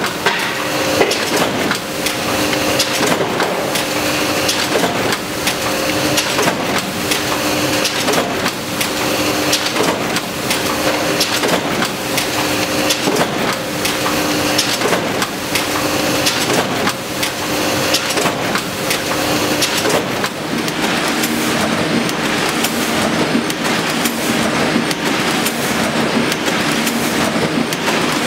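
Offset printing press running: steady, rhythmic mechanical clatter with dense clicking over a pulsing hum, the hum shifting lower about twenty seconds in.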